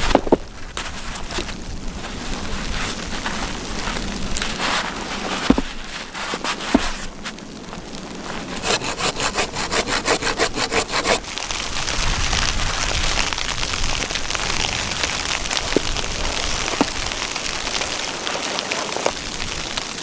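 Wood being cut by hand: a few sharp knocks, then about two and a half seconds of quick, even saw strokes, followed by a steady hiss.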